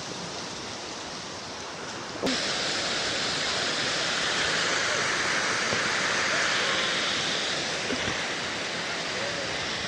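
Steady rushing noise that jumps louder with a click a little over two seconds in and stays up.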